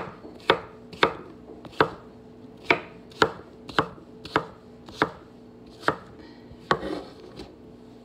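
Chef's knife chopping cucumber on a wooden cutting board, a sharp knock of the blade on the board about every half second. A faint steady hum runs underneath.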